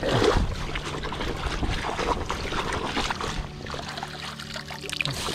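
Water sloshing and splashing as a hand dip net is pushed and swept through shallow, weedy water, with small knocks and crackles throughout.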